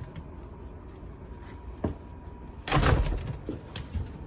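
A sliding door being slid open, a loud scraping run lasting about half a second, a little past the middle, with a few light knocks before and after.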